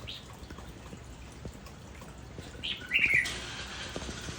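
Young hill myna calling: a brief high call at the start, then a louder call that falls in pitch about three seconds in, with faint scattered clicks in between.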